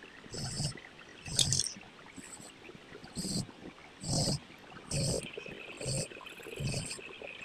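DOMS colour pencil scratching back and forth on paper in regular strokes, about one a second. Each stroke is a short scratch with a soft thud against the table.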